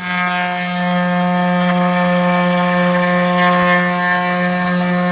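Milling router spindle running at a steady, constant pitch, with the cutter working the material on a finishing pass over an icon.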